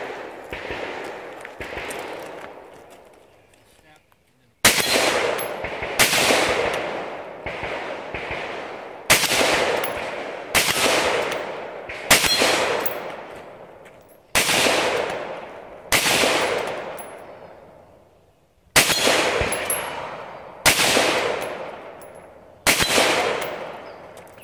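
Rifle shots fired one at a time, about ten in all at an irregular pace of one every one and a half to three seconds, beginning about four and a half seconds in. Each shot is followed by a long echo that dies away.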